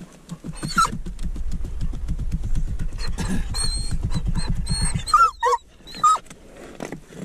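Dog growling low and steadily for several seconds, then a few short high whines about five seconds in.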